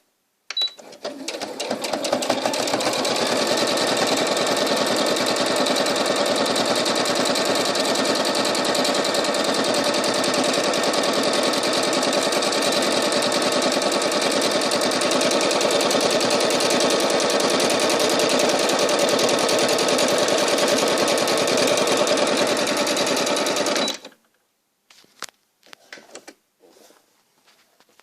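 Carina Comfort electronic sewing machine stitching at speed, a fast, even run of needle strokes. It starts about half a second in, speeds up over the first couple of seconds, runs steadily, and stops suddenly near the end, followed by a few faint clicks.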